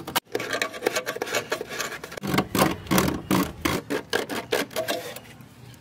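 Sandpaper rubbed back and forth by hand on a painted car body panel, about three strokes a second, stopping near the end. The surface is being scuffed so that silicone sealant will grip.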